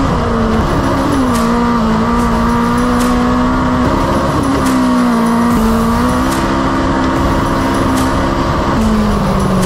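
A Legends race car's Yamaha four-cylinder motorcycle engine running hard in fourth gear, heard from inside the cockpit. Its pitch sags and recovers several times as the car laps the oval.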